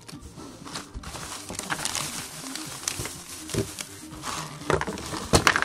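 Plastic bags of small kit parts rustling and crinkling as they are handled, with a few sharp knocks, the loudest near the end.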